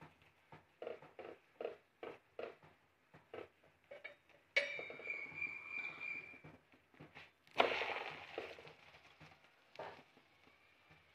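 Metal spoon working oil over a paratha on a tawa in short scraping strokes, about two a second. About halfway through, a sharp metallic clink rings on for about two seconds. A louder clatter of kitchen utensils follows.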